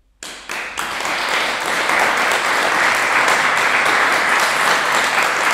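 Audience applauding, breaking out suddenly just after the start and holding steady.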